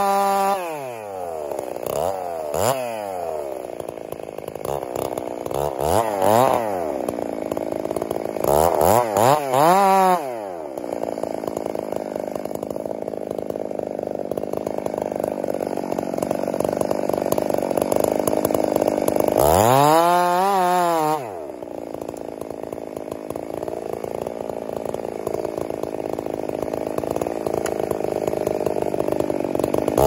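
Two-stroke chainsaw revving up and down again and again as it makes a back cut in a large tree trunk for about the first ten seconds. It then idles steadily, with one brief rev about twenty seconds in.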